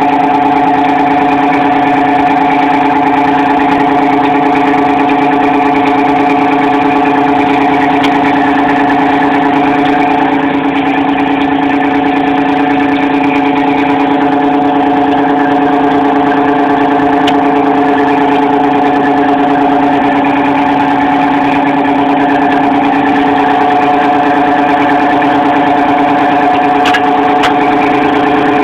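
Fishing boat's engine running steadily under way: a loud, even drone with a constant pitch.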